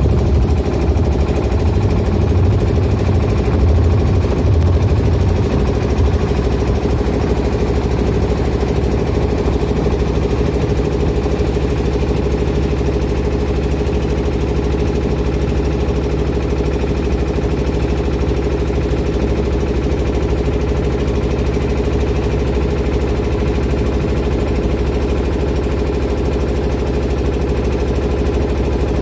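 Boat engine running steadily, a little louder in the first few seconds.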